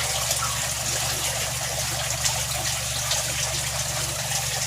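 Steady trickling and bubbling of aquarium water over a low steady hum, the sound of air pumps aerating a fish tank.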